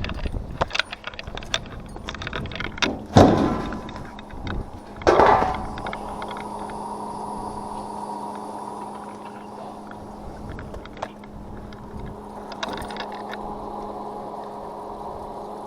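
Knocks and rattles of the cooler's housing being handled, the two loudest about three and five seconds in. Then a steady hum and an even trickle of water as the evaporative cooler's water pump runs on its own.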